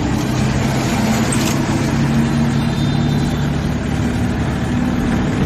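Freshly overhauled Mahindra Supro Maxitruck diesel engine running steadily, heard under way on its road test.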